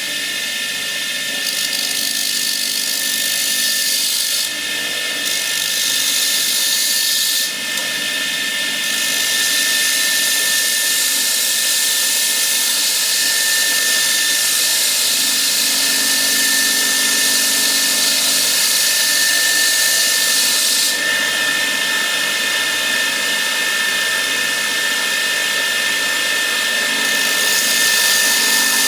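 An electric power tool running steadily: a high whine over a rushing hiss, with slight shifts in its tone, the whine stronger in the later part.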